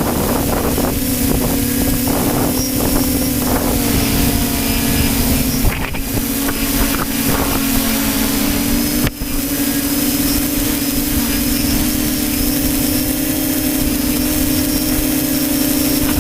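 Radio-controlled model aircraft's motor droning steadily; its pitch sags a little midway and comes back up about nine seconds in. Gusty wind rumbles on the microphone.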